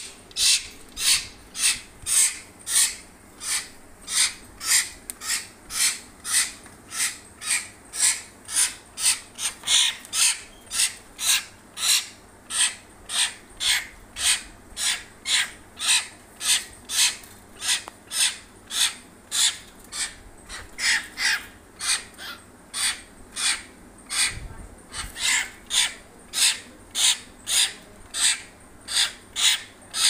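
Hill myna giving a harsh, rasping call over and over, about two calls a second, at a steady pace throughout.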